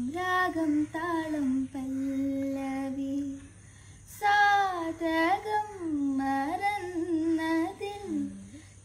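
A girl singing a slow Malayalam film song unaccompanied, with long held notes, a short pause about three and a half seconds in, then a more ornamented phrase.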